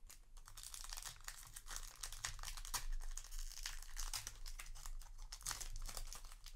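Foil trading-card booster pack wrapper crinkling and crackling continuously as it is handled, then torn open toward the end.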